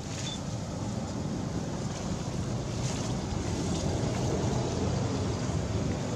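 Wind buffeting the microphone: a steady low rush of noise.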